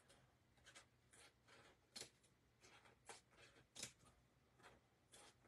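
Faint snips of small scissors cutting an artificial lettuce leaf into strips: a string of short, irregularly spaced snips, the clearest about two, three and four seconds in.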